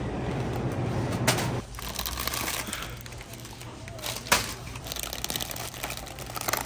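Plastic snack wrappers crinkling as packaged croissants are handled, with sharp crackles about a second in, again a few seconds later and near the end. A low steady background rumble drops away abruptly about a second and a half in.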